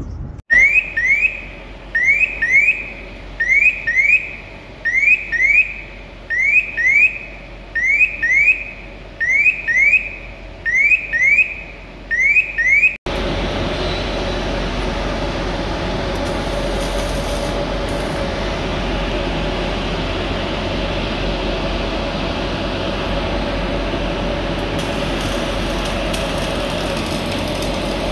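An electronic warning alarm sounding in regular pairs of short rising chirps, about one pair every second and a half. After an abrupt cut about halfway through, a steady machinery drone with a constant hum.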